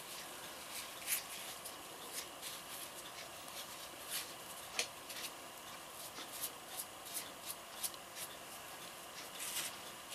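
Acrylic filler being worked by hand into a crack on a concrete statue leg: faint rubbing with irregular scratchy ticks.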